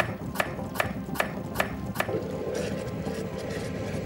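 Sound effects of an animated intro: five sharp, evenly spaced ticks like a ratchet or a winding timer, then a soft swish.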